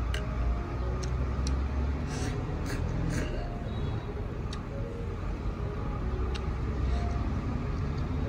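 A person eating a bowl of noodle soup: light clicks of chopsticks or a spoon against the bowl, with a few short noisy eating sounds about two to three seconds in, over a steady low background rumble.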